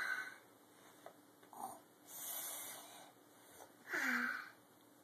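Pretend snoring: wheezy, snorting breaths in four separate goes. The longest is a hissing exhale about two seconds in, and the last and loudest ends in a voiced sound falling in pitch.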